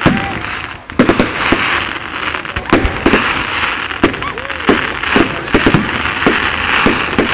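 Fireworks display: aerial shells going off in rapid, irregular bangs, roughly two a second, over a continuous hiss, with a brief lull just before the bangs resume about a second in. Recorded on a mobile phone's microphone.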